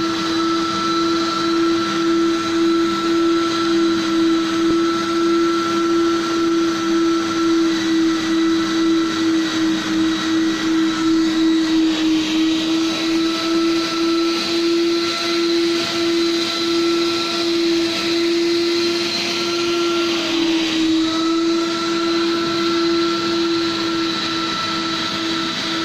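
Commercial tank-type wet-dry vacuum running steadily, its motor giving a constant tone with a higher whine above it, as the hose wand extracts water from office carpet during wet carpet cleaning.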